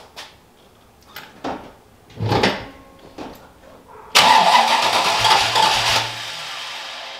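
The 1993 Ford Mustang GT's engine is cranked by its starter about four seconds in, loud for about two seconds, then weaker for about another second before it stops. It is the first start attempt on a freshly installed Holley Terminator X fuel injection system, and the engine does not take; it is short of fuel. Faint clicks come before it.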